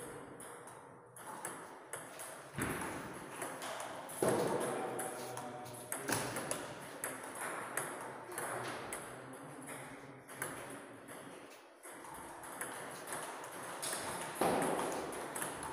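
Table tennis balls clicking, in irregular scattered taps off tables and bats from play in the hall, with indistinct voices now and then.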